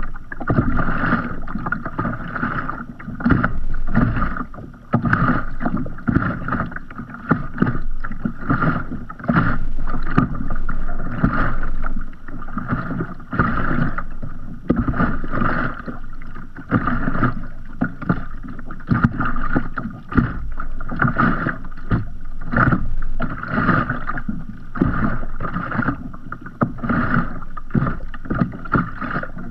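Sea water lapping against a kayak's hull in a continuous string of irregular slaps and splashes.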